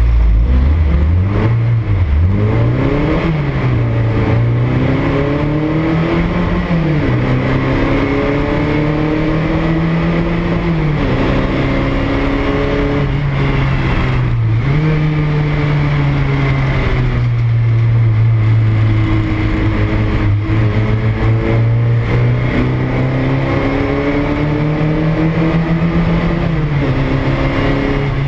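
Porsche 924 race car's four-cylinder engine heard from inside the cockpit, accelerating hard and shifting up through the gears: its pitch climbs and drops back at each of several upshifts in the first fifteen seconds, then runs steadier, with one more climb and shift near the end.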